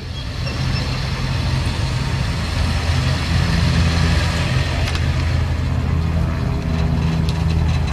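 Sd.Kfz.251 half-track's engine running steadily as the vehicle drives across the arena.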